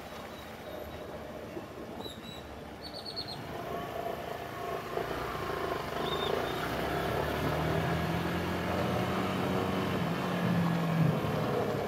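Cruiser motorcycle running at low speed with wind and traffic noise, getting louder over the first half. A low steady engine hum comes in about six seconds in and fades near the end.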